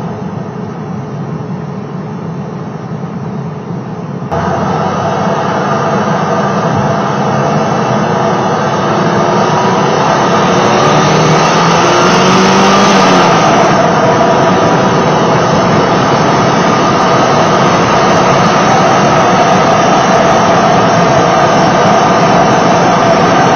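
Porsche 968's ProCharger D-1R supercharged four-cylinder engine, heard from under the hood. It idles more quietly for about four seconds, then pulls away with a sudden rise in level. The revs climb over the next several seconds, and it then runs steadily at high revs with the supercharger whine.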